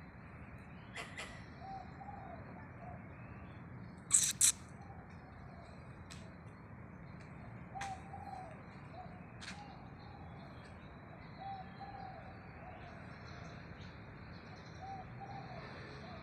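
Squirrel calling: soft, low arched calls, often in pairs, repeating every second or two, with a few sharp high chirps. The loudest is a quick double chirp about four seconds in.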